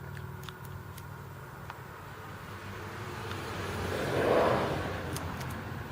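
A vehicle passes, swelling to its loudest about four seconds in and then fading. Under it runs a low steady hum, with a few faint clicks.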